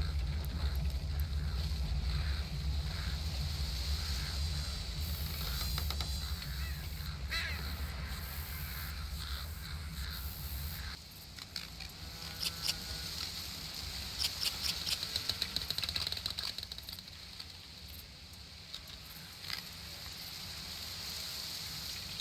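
Outdoor nature ambience of birds calling and chirping, with a quick run of chirps in the middle. Under the birds runs a low rumble that stops about halfway through.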